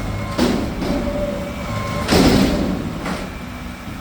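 Mack McNeilus front-loader garbage truck running, with two heavy bangs about a second and a half apart as it works a container over the hopper.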